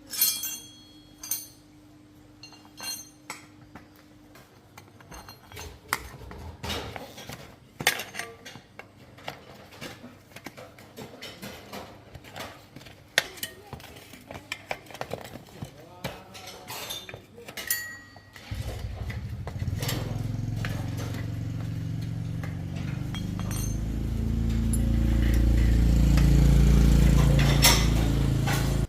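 Scattered metallic clinks and knocks of hand tools against bicycle parts. About eighteen seconds in, a loud low steady drone starts abruptly and swells louder near the end.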